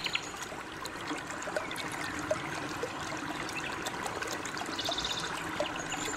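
Water trickling in a small stream, a steady splashy hiss, with a brief high trill about five seconds in.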